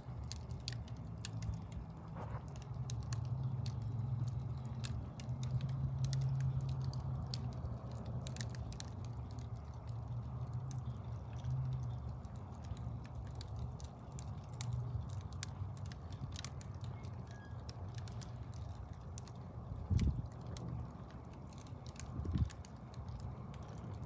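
Wood logs burning on a fireplace grate, crackling with many irregular sharp pops over a low steady rumble of the flames. Two low thumps near the end.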